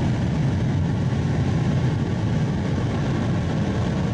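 Rocket engine firing on a horizontal static test stand: a loud, steady, low rushing noise.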